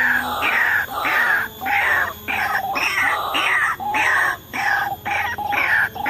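White-breasted waterhen (ruak-ruak) calls: a loud, continuous run of harsh notes, each falling in pitch, about two a second.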